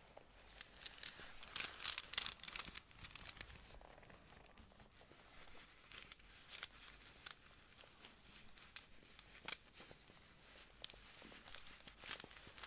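Rune pieces being handled and tapped close to the microphone: a dense run of crinkly scratching and clicking over the first few seconds, then scattered single soft clicks.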